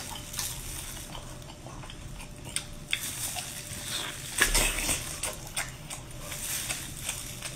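Close-up eating sounds from a whole cooked octopus handled with plastic-gloved hands: scattered wet smacks, clicks and chewing, with the loudest cluster about four and a half seconds in as a tentacle is bitten and sucked.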